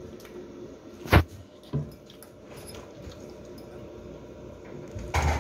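Metal cutlery clinking against ceramic bowls: one sharp clink about a second in and a softer one just after, over quiet room tone.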